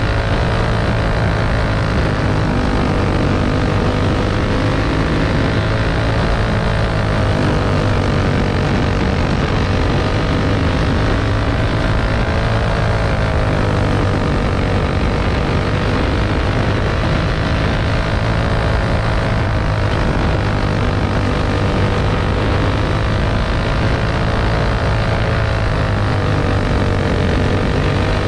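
Champ buggy racing engine running hard, its pitch falling and rising again about every six to seven seconds as the buggy slows for the turns and accelerates down the straights, over steady wind and dirt noise.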